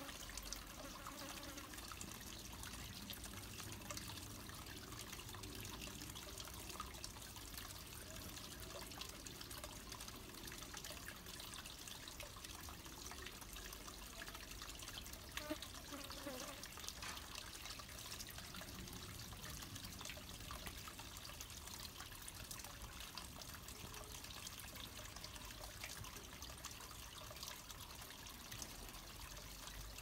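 Faint, steady trickle of running water from a small garden pond.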